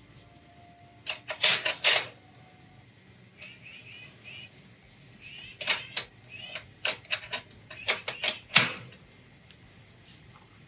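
Metal clanking and clattering of the Anvil Foundry's stainless steel malt basket and its support ring against the kettle as the heavy, wet grain basket is lifted and set onto the ring. The knocks come in uneven clusters, the loudest a little over a second in and several more in the second half.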